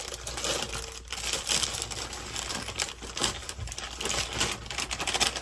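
Brownie batter being stirred by hand in a mixing bowl: a utensil scraping and tapping against the bowl in quick, irregular strokes.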